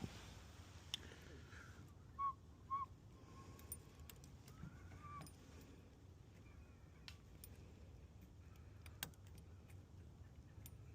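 Faint, sparse metallic clicks and taps of lock-picking tools working a door lock cylinder. Two short chirps come a few seconds in.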